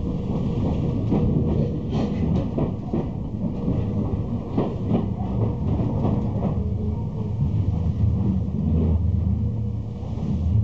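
Electric commuter train running, heard from inside its rear cab: a steady low rumble of wheels on rail with irregular clacks as the wheels pass over rail joints and points.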